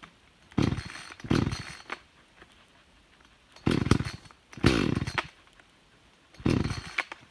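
Chainsaw's recoil starter pulled five times, two quick pulls, two more, then one, each a short whirring turn of the engine that fades without firing: the ignition switch is still off, so the saw won't start.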